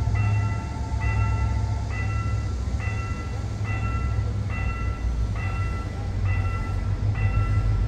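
Railway level-crossing warning bell ringing in even strokes, a little more than one a second, over the low rumble of a train running through the crossing.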